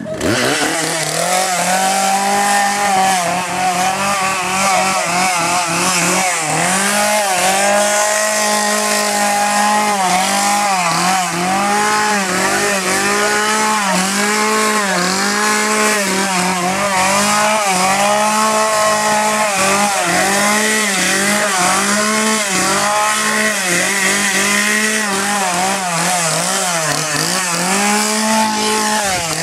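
Two-stroke chainsaw running loudly, its engine pitch dipping and rising again about once a second.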